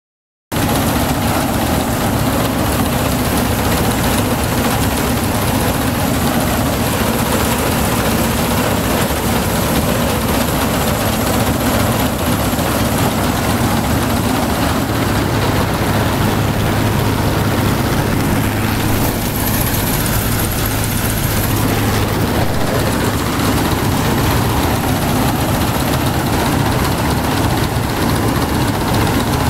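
Claas Matador Gigant combine harvester running steadily under load while harvesting, its engine and threshing machinery heard together from the open driver's seat.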